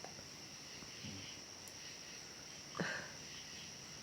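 A woman with a runny nose sniffling once, sharply, about three seconds in, with a fainter short sound about a second in. A steady high-pitched whine runs underneath.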